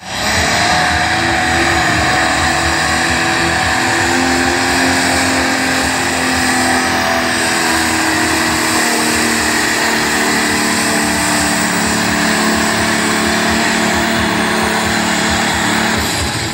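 Diesel pulling tractor's engine running loud and steady at full throttle under heavy load as it drags a weight-transfer sled down the track.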